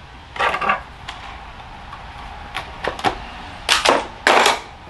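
Handling noise of repotting a fir bonsai: hands and tools scraping and clicking on the roots, tie-down wire and bonsai pot. There is a brief scrape about half a second in, a couple of clicks around three seconds, and two louder scrapes near the end.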